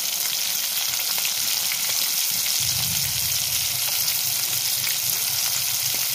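Spice-coated fish steaks deep-frying in hot mustard oil in a metal wok: a steady, loud sizzle of bubbling oil. Light clicks come from a metal spatula turning the pieces.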